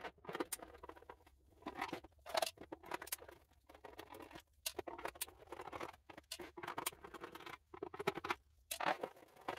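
Screwdriver turning out screws and hands handling the plastic case of an APC Back-UPS 350 to open it: a string of irregular small clicks, scrapes and plastic rattles.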